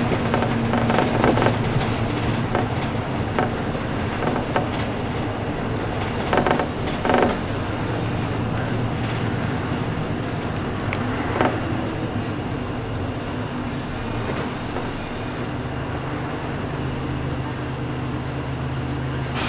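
City bus engine running with road noise, heard from inside the bus, with a few short rattles; for the last few seconds the engine settles into a steadier, lower hum.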